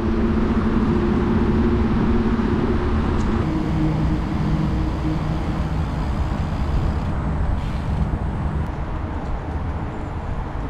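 Wind buffeting a handlebar-mounted camera's microphone while a mountain bike rolls along an asphalt path, with a steady rumble and hiss. A low hum runs through the first eight seconds or so and drops in pitch partway through.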